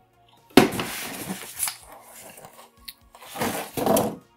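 Unpacking noises: a plastic-bagged power brick and cardboard packaging handled on a tabletop, with rustling and knocks in two loud bursts, one starting about half a second in and another around three and a half seconds in.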